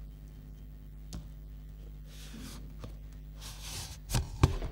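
Cardboard sleeve being slid off a smartphone box, giving a soft scraping hiss twice, then two sharp knocks near the end as the sleeve is set down on the table.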